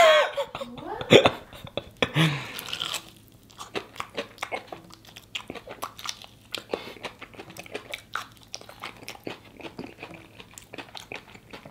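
Close-up biting and chewing of crispy breaded fried chicken: a steady run of small crunches and wet mouth clicks. There is a short vocal groan right at the start and another about two seconds in.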